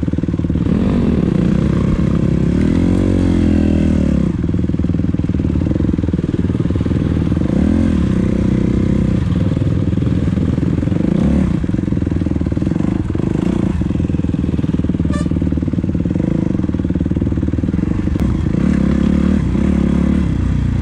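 Dirt bike engine running under load, its pitch rising and falling again and again as the throttle is opened and eased off.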